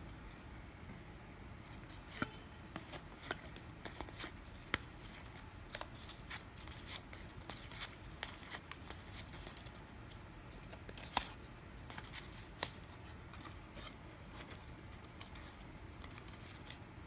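Baseball trading cards being handled and flipped through by hand: faint, irregular light clicks and snaps of card edges, busiest in the middle stretch and thinning out near the end, over a faint steady hiss.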